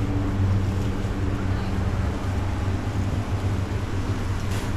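A steady low mechanical hum over a constant noisy background.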